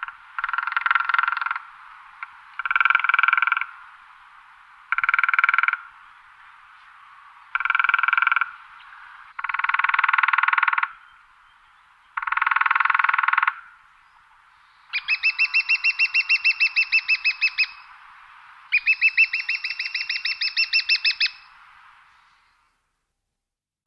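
Woodpecker drumming on wood: eight rapid drum rolls, each one to two seconds long. The last two are longer, and their separate strikes can be told apart.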